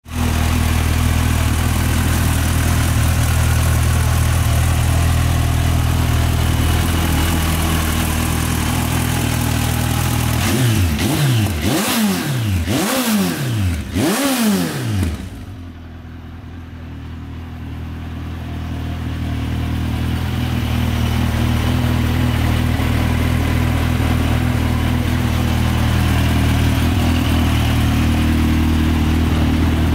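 2007 Suzuki Bandit 1250's inline-four engine idling steadily, with several quick blips of the throttle about ten seconds in that rise and fall in pitch before it settles back to idle.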